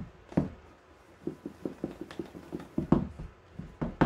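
Hands working a cardboard MacBook Air retail box, a series of irregular knocks and taps against the paperboard as the tight-fitting lid is worked loose.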